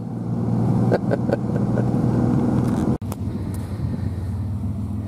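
Pickup truck engine running steadily, a low even hum heard from inside the cab. Near the middle it cuts off suddenly and a quieter, steady run of the truck carries on.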